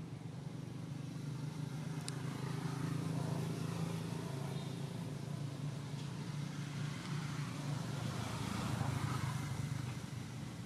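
Low steady hum of motor vehicle engines, with the noise swelling as traffic passes, about a third of the way in and again near the end.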